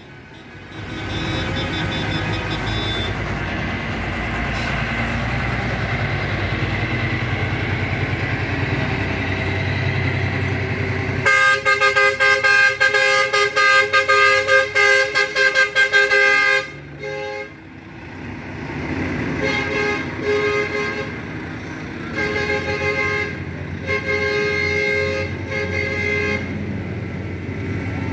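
Trucks and cars driving past with horns honking. A truck engine rumbles for the first ten seconds or so. Then a loud horn of several tones sounds in quick repeated blasts for about five seconds, and shorter bursts of honking follow.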